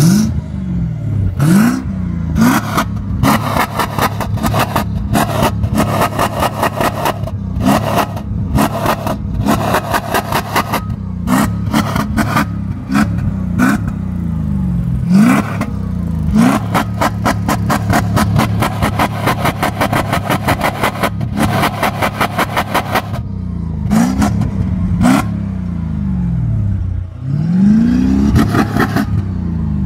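Naturally aspirated Mercedes M113 V8 in a W124 E500, heard from its twin tailpipes, revved again and again from idle in short throttle blips, with a longer rev near the end. A rapid, loud exhaust pulsing runs between the revs.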